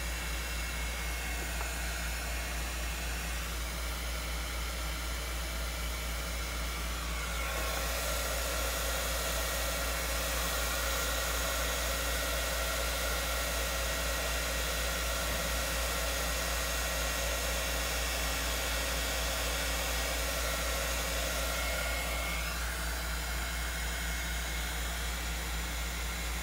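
Handheld heat gun blowing hot air over wet epoxy resin: a steady rushing blow that switches on about a third of the way in and cuts off near the end, over a constant low background hum.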